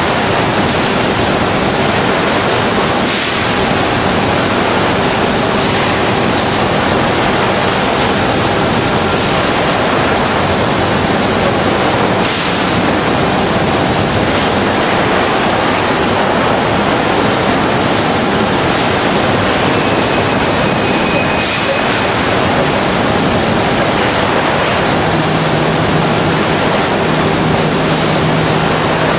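Molten iron in a ladle reacting with magnesium cored wire fed in by an automatic wire treatment station: a loud, steady rushing noise with a few faint sharp cracks, and a low hum joining near the end. It is the sound of the iron being treated into ductile iron.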